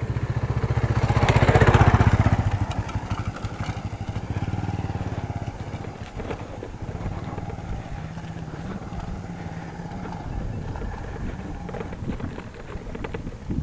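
A motorcycle passes close by on a dirt track, its engine loudest about two seconds in, then fading as it rides off ahead.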